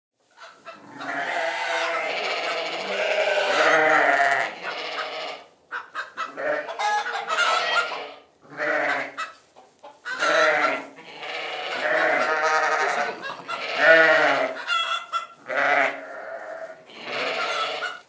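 Sheep bleating again and again: long, quavering calls, several overlapping, with brief pauses between runs.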